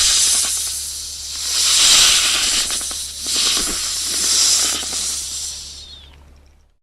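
Snake hissing: a run of long hisses that swell and fade several times, the last trailing off near the end.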